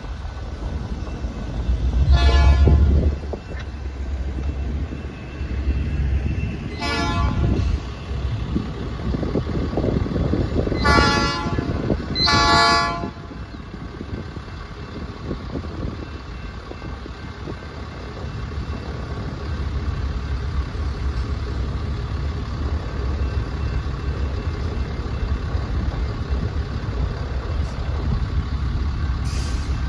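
Diesel locomotive horn giving short blasts, four in the first half, the last two close together, and a brief one near the end, over the steady low rumble of the locomotive's diesel engine.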